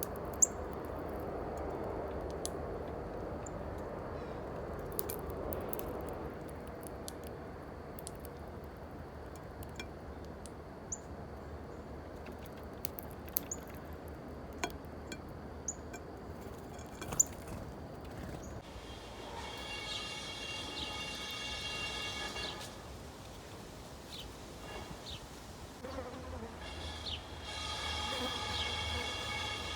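Backyard songbirds giving scattered short, sharp, high chips over a low steady background rumble. About two-thirds of the way through, a steady buzz with a stack of even tones comes in for about three seconds, stops, and starts again near the end.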